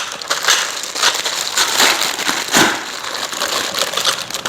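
Rustling and light knocking as greenhouse frame parts, tubes and connectors, are handled and sorted for assembly.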